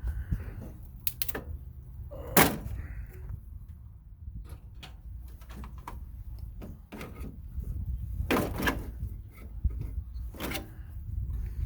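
Irregular knocks and clatters of hands and tools working on an old gas furnace's sheet-metal cabinet and parts while it is being stripped for scrap, with one sharp knock about two and a half seconds in and louder clatters near eight and ten and a half seconds, over a steady low rumble.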